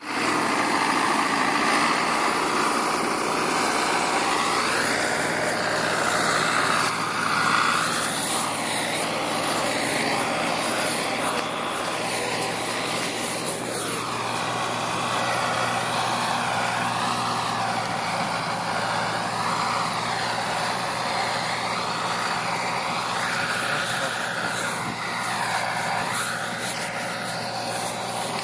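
Snow-plough tractor's diesel engine running steadily, over a continuous rushing noise.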